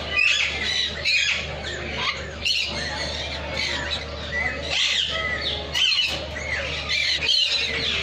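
A dense chorus of many aviary birds chirping and squawking at once, short overlapping calls with no pause.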